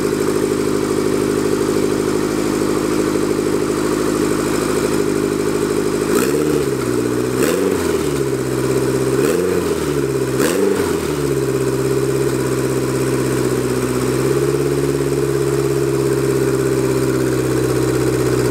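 Honda Civic's B16 four-cylinder engine, newly fitted with four small turbochargers, idling steadily, with four quick throttle blips between about six and eleven seconds in, each a short rise and fall in pitch. This is one of the first runs of the quad-turbo setup.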